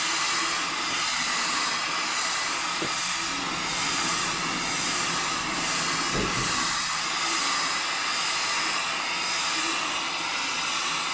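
Jeweler's gas torch burning with a steady hiss as its flame heats a silver strip to annealing temperature, with a short low knock about six seconds in.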